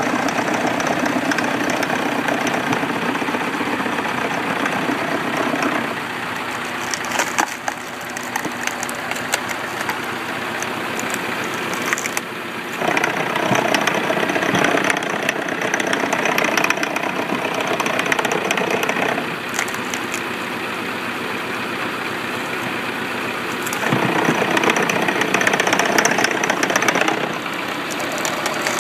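Tractor-driven screw cone log splitter: the engine runs steadily while the threaded cone spins and bores into a log round, the noise swelling in two longer stretches as the cone bites under load. A few sharp cracks stand out along the way.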